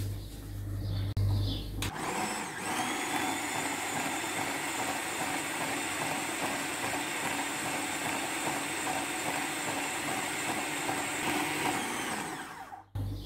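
Food processor motor running steadily, whipping mascarpone and cream cheese with sugar in the bowl. It comes up to speed with a short rising whine about two seconds in and cuts off abruptly just before the end.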